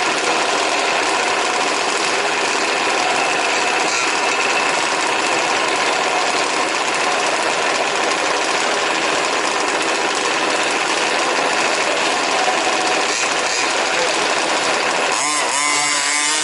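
Several 1/5-scale RC trucks' small two-stroke petrol engines buzzing together in a steady, dense drone. Near the end one engine stands out, revving up and down.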